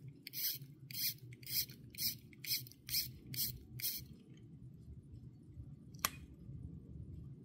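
Crown of a Bulova 10BPAC 23-jewel automatic watch being turned to hand-wind it: about eight short rasping strokes, roughly two a second, that stop about four seconds in. A single sharp click follows about six seconds in.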